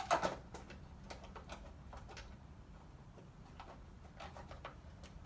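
A sharp knock, then scattered light clicks and taps of plastic and metal parts and hand tools being handled while the engine's top cover goes back on.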